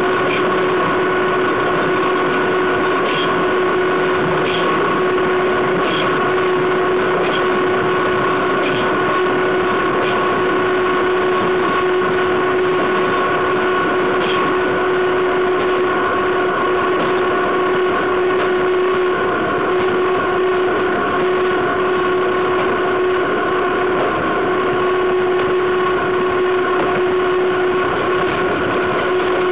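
Wheels of the BDZ class 43 electric locomotive rolling on the rail at a steady speed, picked up right beside the bogie: an even rolling noise with a steady whine held at one pitch. A few faint clicks come through in the first half.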